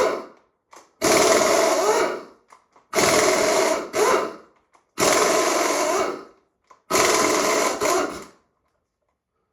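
Cordless power tool spinning a socket in short bursts of about a second, five runs roughly two seconds apart, each spinning up with a rising whine: the head bolts of a V8 cylinder head being run out.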